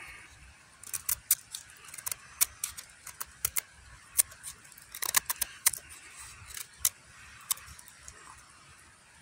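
A brand-new fixed-blade knife carving chips off a dry, weathered stick: a string of sharp, crisp cracks as the blade bites in and shavings split away, irregular and densest about five seconds in. The clean bites test how sharp the blade is straight out of the box.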